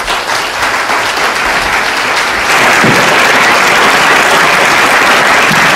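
Audience applauding, growing louder about two and a half seconds in.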